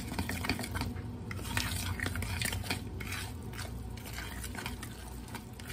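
A utensil stirring pancake batter in a mixing bowl, with irregular clinks and scrapes against the bowl.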